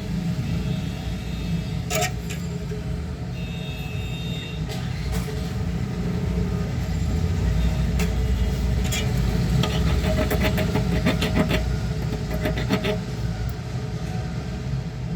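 Steady low background rumble with scattered light clicks and ticks, a cluster of them about two thirds of the way in.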